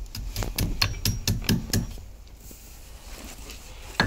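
Claw hammer tapping the legs of a new split pin over against a castellated hub nut, metal on metal, bending them down so they sit inside the hub. A quick run of light taps lasts about two seconds, and a single sharper tap comes near the end.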